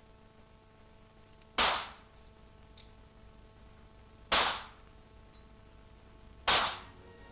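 Three pistol shots on a target range, each a sharp crack with a short tail, a little over two seconds apart.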